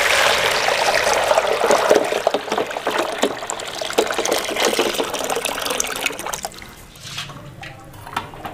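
A thick stream of custard-thickened milk poured from height into a steel bowl, splashing and frothing steadily, then fading out about six seconds in.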